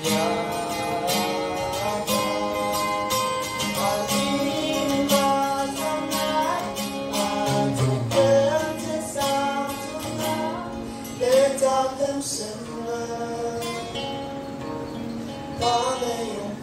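Singers performing a gospel song to strummed acoustic guitar.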